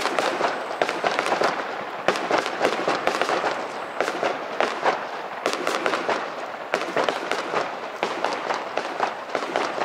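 Aerial fireworks display crackling: a dense, unbroken run of sharp pops, several a second.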